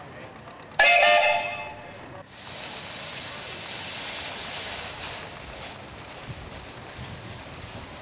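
A steam whistle gives one blast about a second long, starting about a second in, its several pitches sounding together as a chord. A steady hiss follows.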